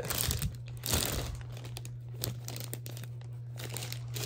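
Clear plastic zip-top bag crinkling and crackling as it is gripped and handled, the sound coming in irregular spurts, loudest in the first second.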